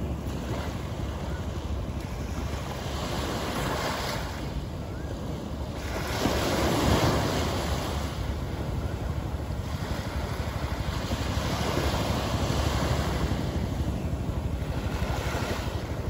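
Small sea waves lapping and washing onto a sandy shore, swelling and ebbing every few seconds, loudest about seven seconds in.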